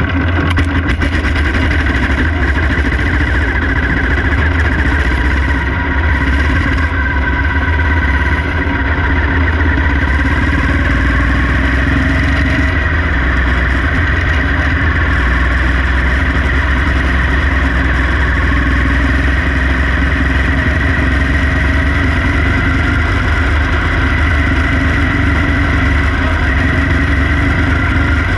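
Quarter midget race car's small single-cylinder engine running hard, heard close up from on board, steady with small rises and falls in pitch as it laps.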